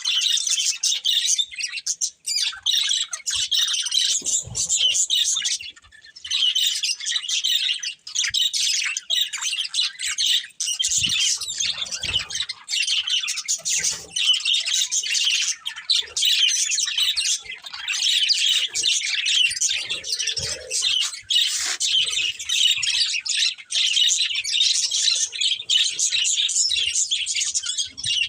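Several budgerigars chirping and chattering continuously, a dense overlapping warble of quick high-pitched calls.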